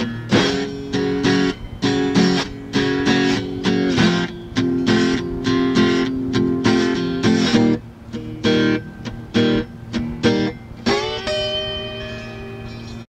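Guitar playing a rhythmic run of sharply plucked chords, about two a second. Near the end a last chord slides up, rings on for about two seconds, then cuts off suddenly.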